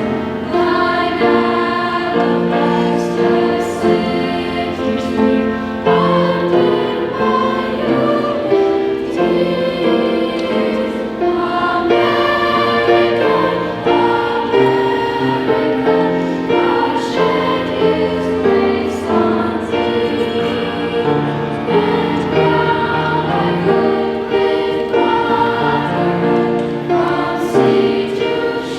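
School choir singing a patriotic song, many voices together in changing held chords.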